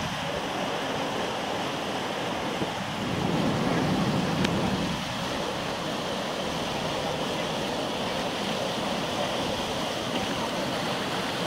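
Steady rushing of a fast tidal rapid, the current breaking white over a standing wave, a little louder for a couple of seconds partway through.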